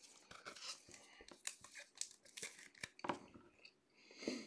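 Faint crinkling and light clicking of a plastic card sleeve and a rigid plastic top loader as a trading card is handled and slid into them, with a slightly louder rustle near the end.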